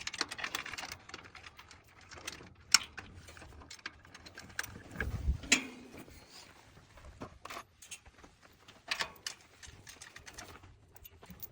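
Scattered metal clicks and clinks of bolts, nuts and hand tools being handled while a rack bracket is bolted on, with a louder knock about five seconds in.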